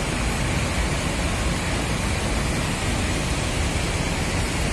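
Steady rushing rumble of traffic and buses at a busy bus terminal, with no distinct engine note or horn standing out.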